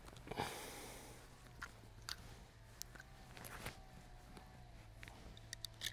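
Quiet pistol handling noise: a scattering of faint clicks and rustles as an FN 1910/22 pistol is worked to clear a stoppage, over a low steady hum.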